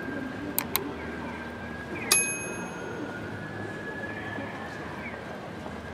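Busy city street sounds: a steady murmur of passers-by, two sharp clicks near the start, and one short bright metallic ding about two seconds in that rings briefly and fades.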